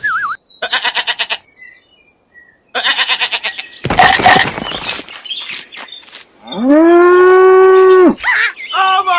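Cow mooing: one long, steady moo about seven seconds in, the loudest sound here, with shorter, rasping calls before it and brief calls near the end.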